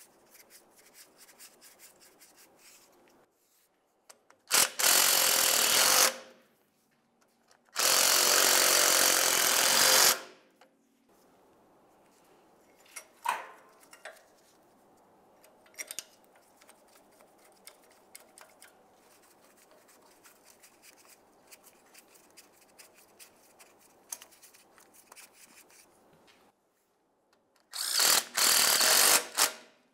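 A handheld power tool running in three short bursts, the middle one the longest, snugging up mounting bolts. Faint clinks and ticks of hand work come between the bursts.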